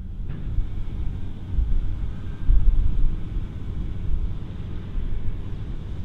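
Claas Lexion 8900 combine harvester working in the field: a steady engine and machinery drone with a heavy low rumble.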